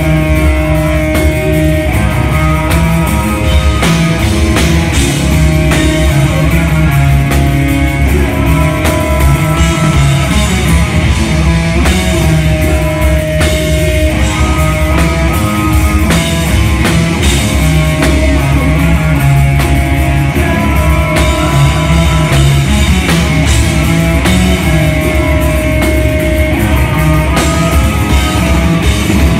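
A live extreme metal band playing at full volume: heavily distorted electric guitars holding low riffs over fast, constant drum-kit hits.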